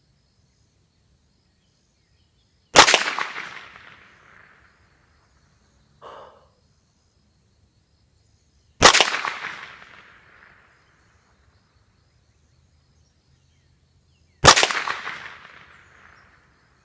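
Three shots from a Ruger 10/22 Takedown .22 LR rifle, about six seconds apart, each a sharp crack with a short echoing tail.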